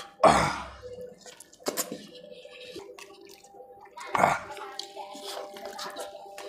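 Close-miked wet eating sounds: a roasted chicken leg torn by hand and chewed with smacking and squelching, with two louder bursts, one just after the start and one about four seconds in.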